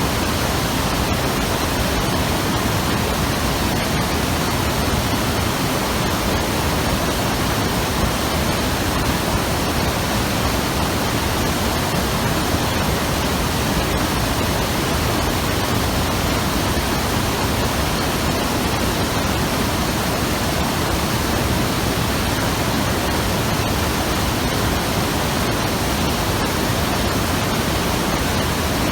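The Hayakawa, a fast mountain river, rushing steadily over rocks: a dense, even roar of water with no breaks.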